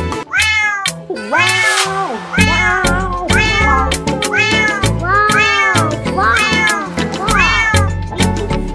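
Dance music with a steady beat, its melody carried by a run of cat meows: one long meow about a second in, then shorter meows one after another in time with the beat.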